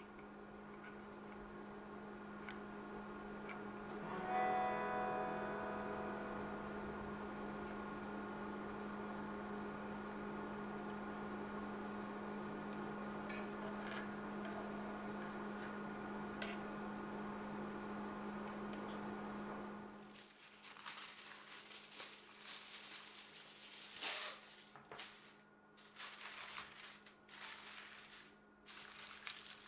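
Aluminium foil crinkling and rustling in irregular bursts as it is pressed over a cake tin, starting about two-thirds of the way in. Before that, a steady low hum, with a brief ringing tone about four seconds in.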